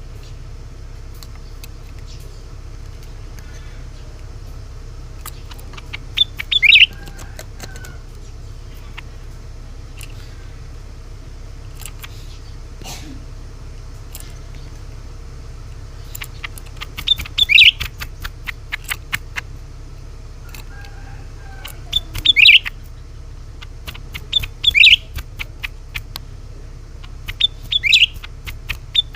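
Cucak ranting calling: short bursts of a few sharp, high notes every few seconds, with brief clicking notes between them, over a steady low hum.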